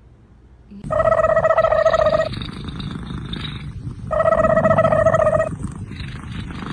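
An animal making two long, steady-pitched calls over a rough, rumbling noise, starting about a second in.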